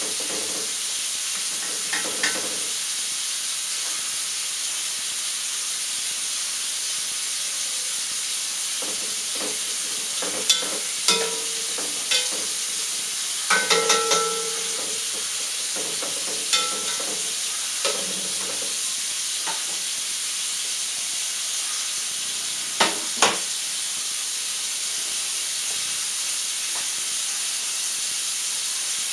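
A spoon clinks and knocks against a pot while stirring, in scattered strikes with a cluster of them about halfway through, some ringing briefly. Under it a steady hiss of tap water runs into a stainless steel sink.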